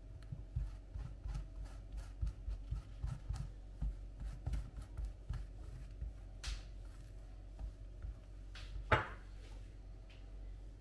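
Kitchen handling sounds: a run of light knocks and taps, a brief swish about six and a half seconds in, and a louder scrape near the end.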